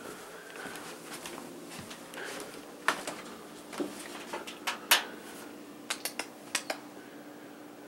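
Light household clicks and knocks, irregular, with several in quick succession in the second half, over a faint steady hum.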